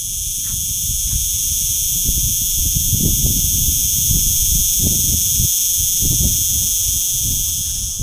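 Steady, high-pitched buzzing of insects singing in chorus, with low, irregular thuds underneath.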